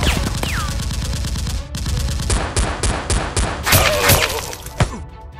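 Bursts of rapid automatic gunfire, added as sound effects over a Nerf blaster fight, in several runs with a short break about two seconds in. A brief falling whistle is heard about half a second in.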